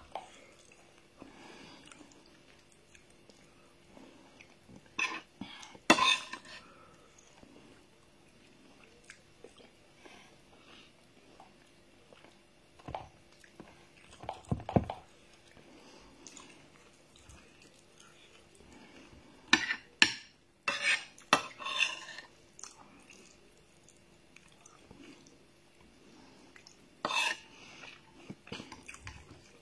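A metal spoon clinking and scraping against a ceramic plate in scattered clusters as food is scooped up, with quiet chewing in between.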